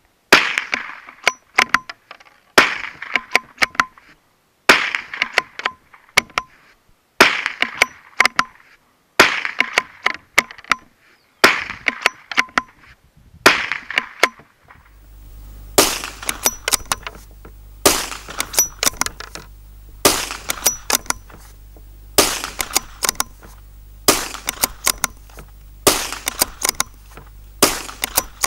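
Lithgow LA101 bolt-action rifle firing .22LR, one shot about every two seconds. After each shot come the quick clicks of the bolt being worked to eject the case and chamber the next round from a CZ 10-round magazine, which feeds and cycles without a problem.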